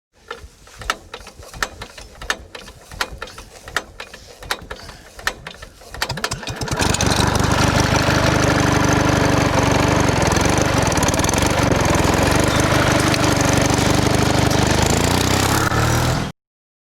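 Irregular sharp clicks and knocks, then from about seven seconds in a small engine running steadily at a constant pitch, cutting off abruptly near the end.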